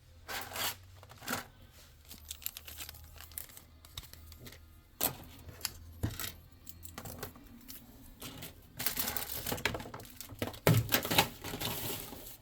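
Trading-card packaging being handled: scattered clicks and taps, then about nine seconds in a couple of seconds of crinkling, tearing plastic wrap with a few sharp snaps.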